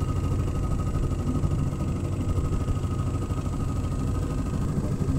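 Outboard motor running steadily, pushing a fibreglass river boat along, heard from aboard.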